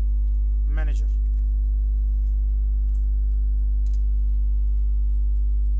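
Steady low electrical mains hum, with a few faint computer keyboard keystrokes as a command is typed.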